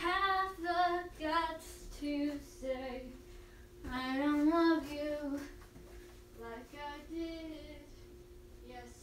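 A woman singing to herself in short melodic phrases, loudest in the first few seconds and again about four seconds in, then trailing off softer, over a steady low hum.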